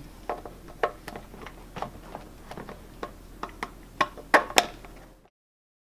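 Irregular hard plastic clicks and knocks of a manikin's leg being worked into its knee joint by hand, with the loudest few knocks near the end. The sound then cuts off suddenly.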